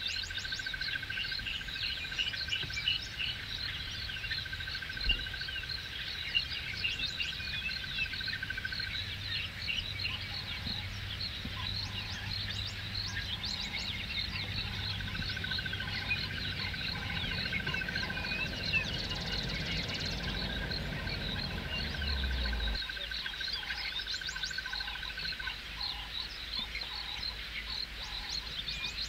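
Bushveld evening chorus: many birds chirping and calling, with a steady high trill that stops and starts again, over a low rumble that stops about two-thirds of the way through.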